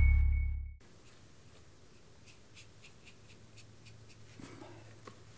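A deep hum with a high steady tone from the logo sting fades and cuts off within the first second. After that come faint soft taps and scratches of a watercolour brush working on paper, a little louder near the end.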